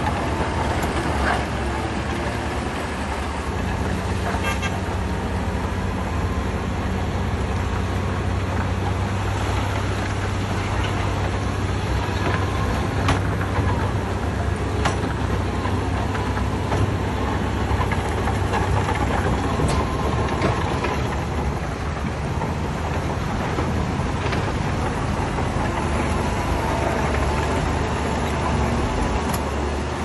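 Heavy diesel earthmoving machinery running steadily under load, a low engine drone with scattered sharp clanks and knocks.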